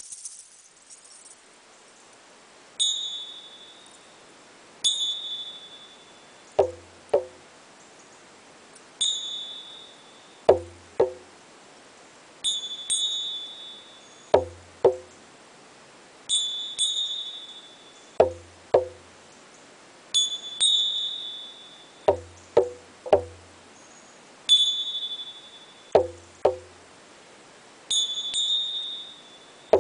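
Tingsha cymbals clashed together, each strike ringing high and clear for about a second, every few seconds and sometimes twice in quick succession. Between the cymbal strikes come short, low knocks in ones, twos or threes.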